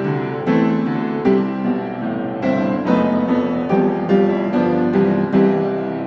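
Background music: a piano-like keyboard playing a steady run of notes, a few a second.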